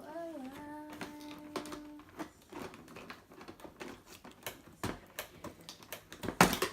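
Toy packaging being handled and pulled apart: scattered small clicks and crinkles, with a louder clatter near the end. In the first two seconds a voice hums one held note over it.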